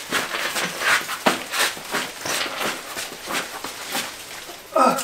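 Large Monstera leaves rustling and brushing as a heavy terracotta pot is lifted and carried, with footsteps on patio tiles, in a run of short, uneven rustles.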